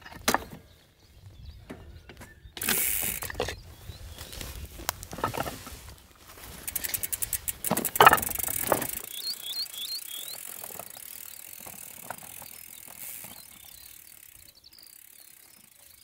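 Bicycle freewheel hub ticking in a quick run of clicks as the loaded bike is rolled by hand, among knocks and rattles from the bike being handled. It fades to faint outdoor ambience after about nine seconds.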